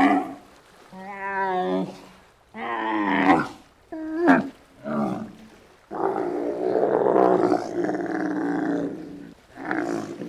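An animal calling: a few short calls with a wavering pitch, then a long, rasping, roar-like call about six seconds in that lasts over three seconds.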